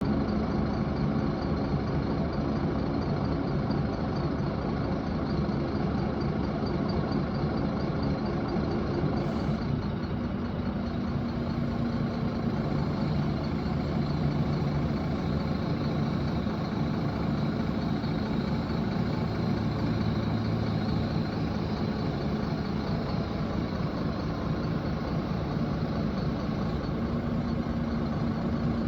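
Diesel engine of a 12-ton truck crane running steadily, its pitch shifting a little partway through.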